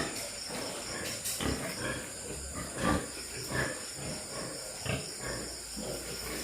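Pigs grunting in their pens: short irregular grunts, some louder than others, over a steady high hiss.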